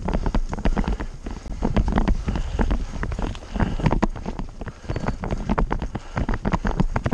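Mountain bike rattling and clattering as it rolls over roots and rocks on a dirt trail, with many irregular knocks and a low wind rumble on the microphone.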